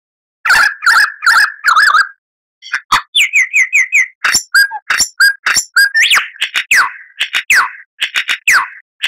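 Lyrebird singing a varied run of phrases: four harsh notes, a brief pause, a quick series of short descending chirps, then loud whistles sweeping downward.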